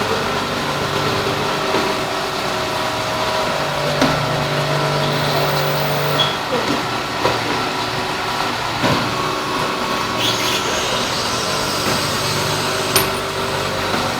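Industrial machinery running: a steady motor hum with several held tones, a deeper hum that cuts in and out in stretches of a second or more, and a few scattered clicks and clunks.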